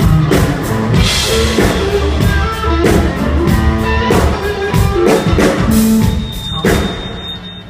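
Live rock band playing: drum kit beating a steady rhythm under bass and electric guitar, the playing dying down near the end.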